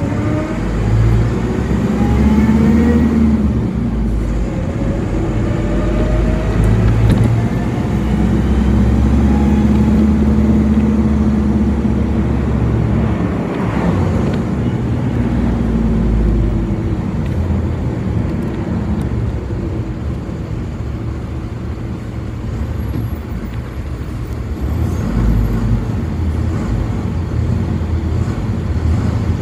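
City bus under way: engine and drivetrain noise over road rumble, with a rising whine as it picks up speed in the first few seconds and again a few seconds later, then a steadier drone.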